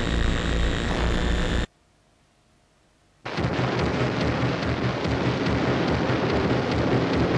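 Sustained droning music that cuts off suddenly; after about a second and a half of silence, a loud, dense rushing noise starts abruptly and runs on steadily, like a storm sound effect.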